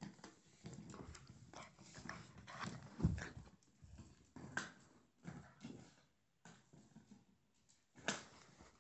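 Labrador puppy scrambling after a balloon on a tile floor: irregular scuffs, patters and knocks of paws and claws on the tiles and the balloon bumping about. The loudest is a single low thump about three seconds in.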